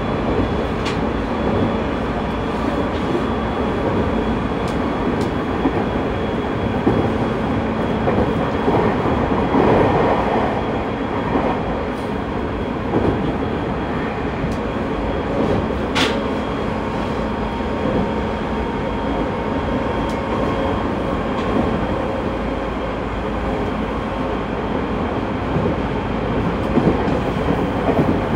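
JR 209 series 2100-subseries electric multiple unit running along the track: a steady rumble of wheels on rails with faint steady tones and an occasional sharp click.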